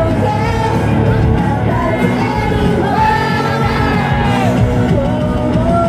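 Girls' idol group singing in unison into handheld microphones over a loud pop-rock backing track, with the voices sliding up and down between notes.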